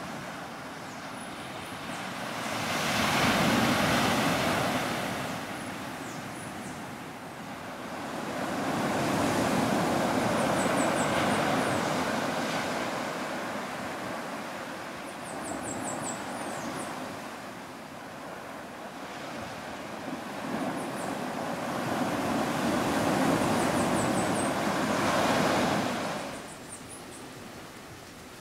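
Sea waves washing in and breaking on the shore, swelling and fading in three long rushes, with faint high chirps over them.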